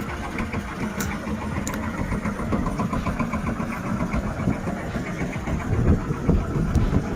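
A small boat's engine running steadily with an even, fast putter.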